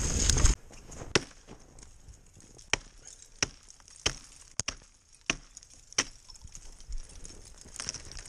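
An axe chopping into a dead tree: about seven sharp strikes roughly two-thirds of a second apart, then a few lighter knocks near the end. A loud rush of noise cuts off half a second in, before the strikes begin.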